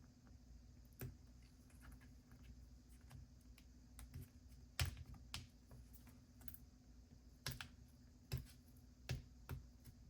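Faint, irregular clicks and taps of hands and a small tool working on the parts inside an opened laptop, with the loudest tap about five seconds in and a few more near the end.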